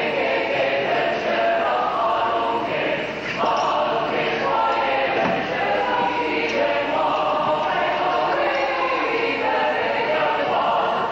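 Mixed choir of men and women singing together, with sustained notes that change about once a second.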